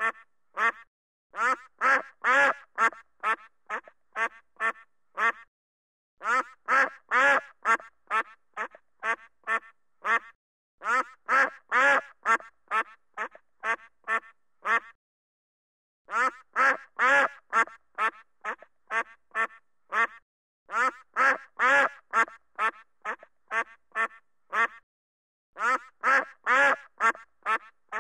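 A duck quacking in rapid runs of short quacks, about three a second. Each run lasts a few seconds and is louder in the middle, with brief pauses between runs.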